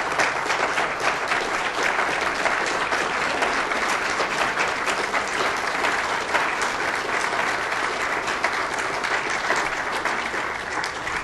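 Audience applauding steadily, a dense patter of many hands clapping that eases off near the end.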